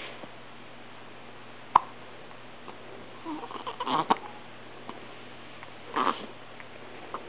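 Hiccups: one sharp hic about two seconds in, then a ragged cluster of short hics and breathy sounds around four seconds, and another around six seconds.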